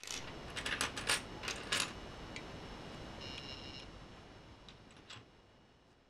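Small plastic Lego bricks clicking and rattling as they are handled and pressed together: a quick run of sharp clicks in the first two seconds, then a few fainter clicks.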